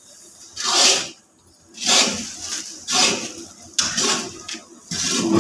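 A long metal paddle scrapes and churns through a thick, gritty mix of lac and abrasive grit (khurand) in a large iron wok. There is one rasping scrape about every second, five strokes in all.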